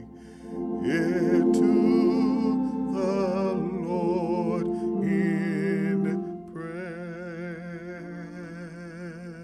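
Church music: sustained, wavering notes in a few slow phrases over steady held low tones, getting softer about two-thirds of the way through.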